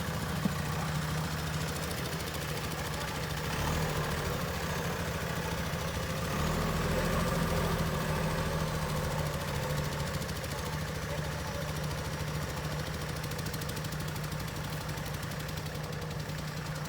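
JCB backhoe loader's diesel engine running steadily, getting louder about three and a half seconds in and again about six seconds in.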